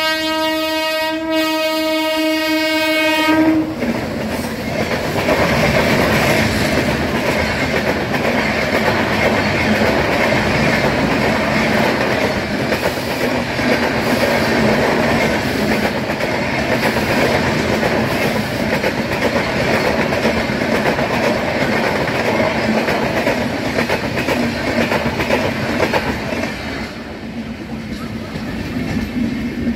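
Locomotive horn held in one long steady blast that cuts off about three and a half seconds in, then an express train of passenger coaches rushing past at speed with its wheels clattering over the rail joints. The noise drops near the end.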